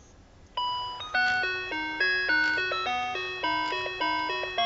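Talking teddy bear toy's built-in electronic melody: a tinny, chime-like tune of short notes, about three a second, each struck and fading, starting about half a second in after its paw is pressed.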